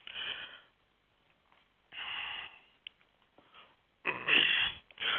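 A person breathing audibly into a close microphone: three noisy breaths about two seconds apart, with near silence between them.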